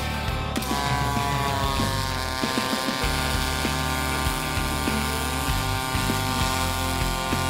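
MIG welding arc on aluminum from an Abicor Binzel FreedomDrive push-pull torch, a steady hiss that starts about half a second in and holds evenly.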